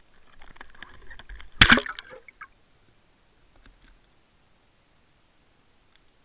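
Waterwolf underwater camera, heard through its own sealed housing, knocking and rustling as it is handled, then one loud splash about a second and a half in as it drops into the water. Only a few faint clicks follow.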